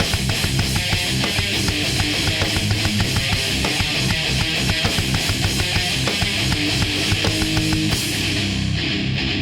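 Heavy metalcore instrumental: distorted electric guitars over fast, pounding drums. About eight seconds in the drums stop and the guitars ring on alone.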